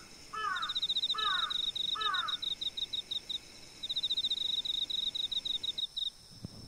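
Night-time ambience of crickets chirping in quick pulsing bursts, which stop about six seconds in. Early on, three short falling bird calls come about a second apart.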